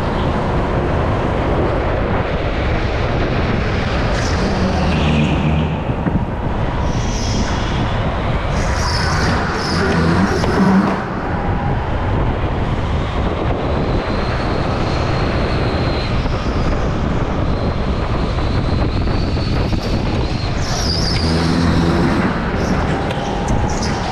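Go-kart running at speed, heard from onboard: a steady dense drive and rushing noise with a few short low swells.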